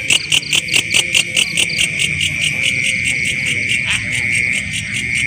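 Night insect chorus: crickets chirping in a fast, even pulse of about five a second over a steady high buzz. The pulses fade about two seconds in, while the buzz carries on.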